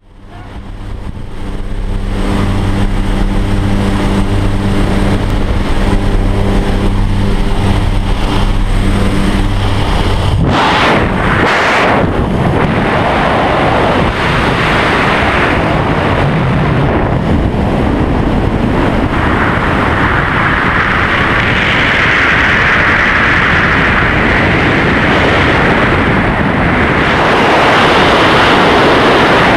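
Steady drone of a jump plane's engine for about the first ten seconds. Then, after a couple of sharp bursts, a loud rush of freefall wind over the microphone takes over, growing stronger in its upper range about two-thirds of the way through.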